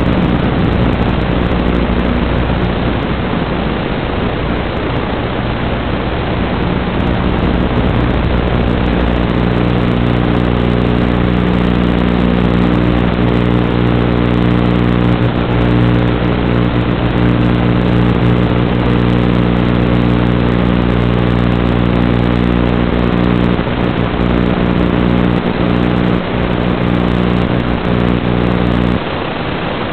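Loud steady static hiss from an analog FPV video receiver's audio channel. About nine seconds in, a steady buzzing hum of several even tones joins it, and the hum cuts off suddenly about a second before the end.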